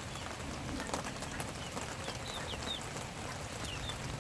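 Steady rain falling on a tarp roof, with drops ticking on it, while juvenile chickens peep with short, high chirps several times.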